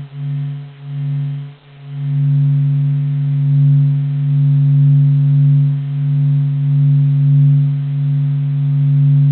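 Low electronic drone presented as the sound of the Sun, made by converting spacecraft solar data into audio. It is one deep hum with a fainter overtone above it, swelling and easing slowly, with a few short dips in the first two seconds.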